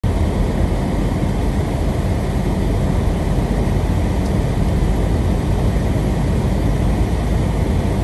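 Steady driving noise of a car heard from inside its cabin, a dense low rumble of tyres on a snowy road with strong wind against the car.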